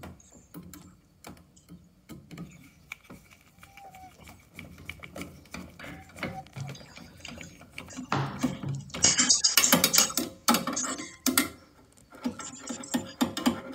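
Screwdriver driving screws into the boiler's sheet-metal gas valve mounting plate: a run of irregular metallic clicks and scraping, densest and loudest about eight to eleven seconds in.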